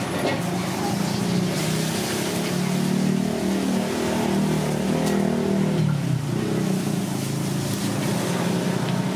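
Steady low engine rumble, swelling slightly in the middle and easing after about six seconds.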